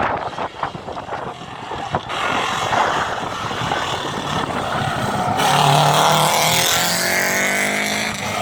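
Rally cars' engines running hard, with a few sharp knocks early on. About five seconds in, one engine grows louder and closer, its note rising as it accelerates.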